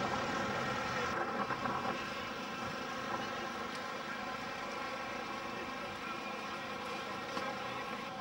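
Aircraft engine running with a steady drone made of many even tones.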